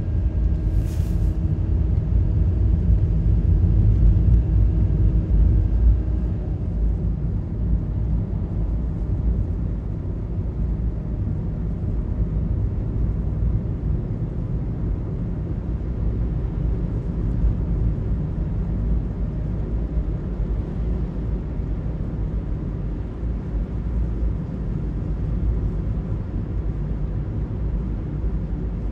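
Cabin noise of a car driving: a steady low rumble of engine and road noise, with a faint engine hum in the first several seconds that gives way to an even rumble of tyres on the road.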